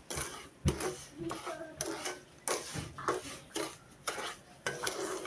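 A spoon scraping and stirring semolina as it toasts in butter in a nonstick pan, in a run of short strokes about twice a second.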